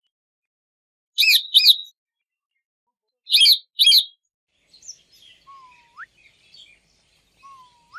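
Parrots calling: two loud, sharp double-note calls about two seconds apart, then faint chattering with two short upward-sliding whistles in the second half.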